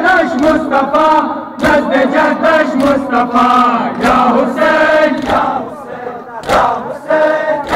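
A crowd of men chanting a mourning lament (noha) together, with a sharp collective slap of hands on bare chests about every two and a half seconds, in time with the chant.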